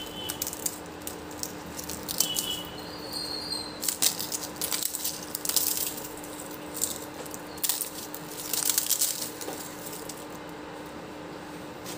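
Crisp fried papdi (flour wafers) crackling and snapping as they are broken up by hand and dropped onto a bowl of chaat, in irregular clusters of crackles, with a faint steady hum underneath.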